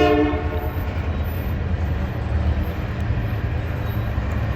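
Train horn sounding and cutting off about half a second in, followed by a steady low rumble as the holiday train leaves.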